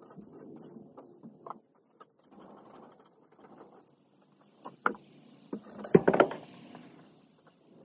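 A rag rubbing across a clamped-up wooden board panel, then several sharp knocks and clanks as metal bar clamps are handled, the loudest cluster about six seconds in.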